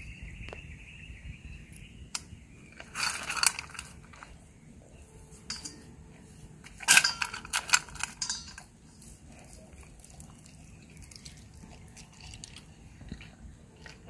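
German Shepherd eating raw meat and dry kibble from a stainless steel bowl: two bouts of crunching and chewing, about three seconds in and again from about seven to eight and a half seconds in.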